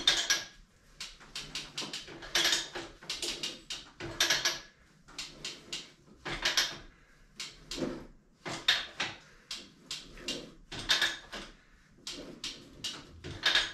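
Hand-pumped chain come-along ratcheting under load as it drags a heavy lathe: a run of sharp metal ratchet clicks, with a louder clack about every two seconds as the lever is worked.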